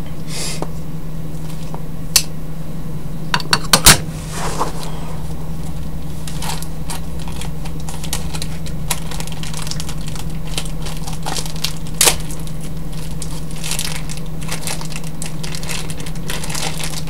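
Lighter packaging being handled and opened: crinkling and rustling with scattered sharp clicks and taps, loudest in a cluster about four seconds in, over a steady low hum.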